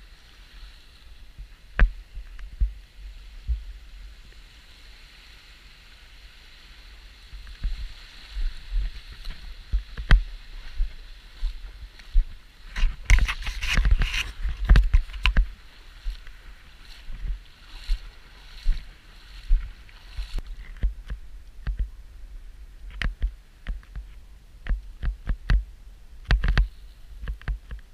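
Shallow sea water sloshing and splashing in irregular bursts, with wind rumbling on the microphone. A steady hiss underneath stops suddenly about two-thirds of the way through.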